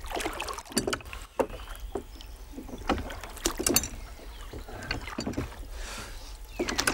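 Rowing a small plastic rowboat: wooden oars dipping and pulling through the water with splashing, and irregular sharp knocks from the oars in their metal oarlocks.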